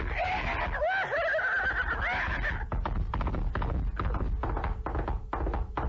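Horses whinnying several times over a fast clatter of galloping hooves. The whinnies die away after about two and a half seconds, leaving the hoofbeats alone.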